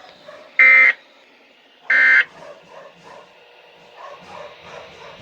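Two short, harsh digital buzzes from a weather radio alert broadcast, about a second and a bit apart: the closing bursts of a SAME end-of-message data code that marks the end of an alert. Faint radio background follows.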